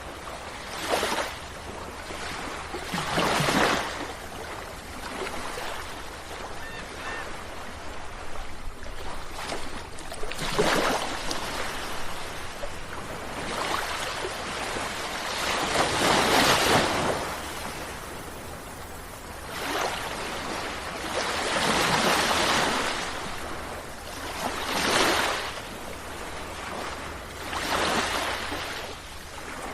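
Sea waves breaking and washing ashore one after another, each surge swelling and fading over a second or two, every few seconds, with the biggest wave about halfway through.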